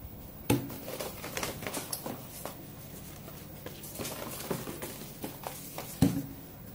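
Cosmetic products and their cardboard packaging being handled: rustling and light clicks, with a sharper knock about half a second in and another near the end.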